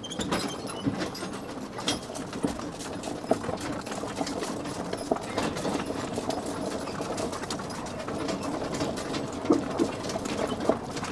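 Mule-drawn wagon rolling along: a steady clatter and rattle from the wagon, with the knocks of the mules' hooves scattered through it. The sound starts abruptly.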